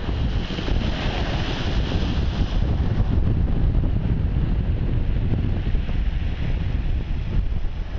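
Waves breaking and washing up a shingle beach, a rushing hiss that swells in the first few seconds, under a heavy low rumble of wind buffeting the microphone.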